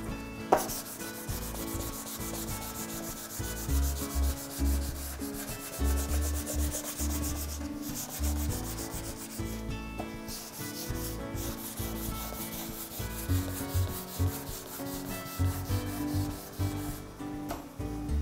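Sanding block with sandpaper rubbed by hand back and forth over a plywood cabinet panel, scuffing down a dried coat of sanding sealer before the urethane top coat. A quick, even run of strokes with brief pauses about eight and eleven seconds in.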